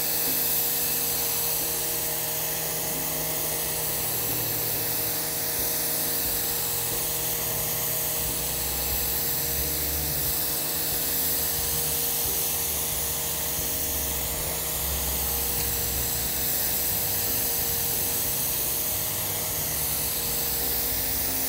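Pressure washer running steadily, a constant motor-and-pump whine under the hiss of its high-pressure jet blasting across wet concrete.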